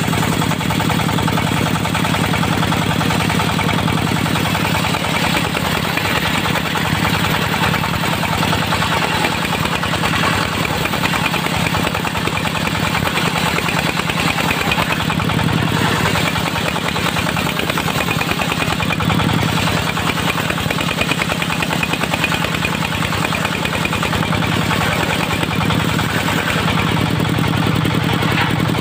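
Diesel engine of a mobile circular sawmill running steadily at an even speed.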